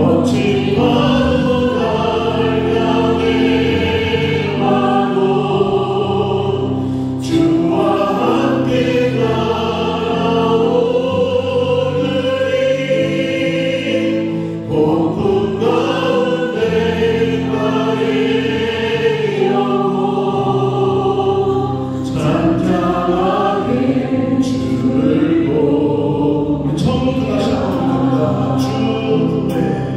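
A church praise team singing a gospel hymn together over keyboard, bass and drum backing, in long held phrases that break briefly about every seven seconds.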